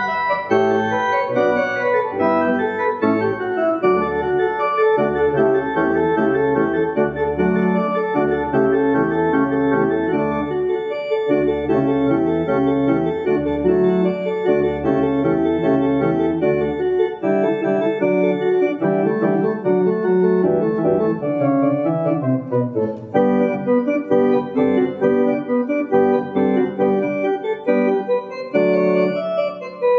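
Electronic church organ playing a many-voiced piece in full chords over a low pedal bass. The pedal bass drops out a little past halfway, and after a short break the piece goes on in the manuals alone.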